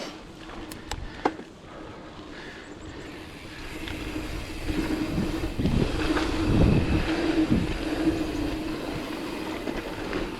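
Scott Spark mountain bike ridden along a dirt trail: tyres rolling with a steady hum under the rumble and rattle of the bike over the ground, and a few sharp knocks near the start. It grows louder about four seconds in, with knocks and thuds over rougher ground.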